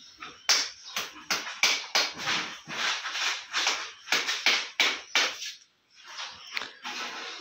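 Rapid, irregular knocks and taps, about three a second, broken by a brief pause a little before the end.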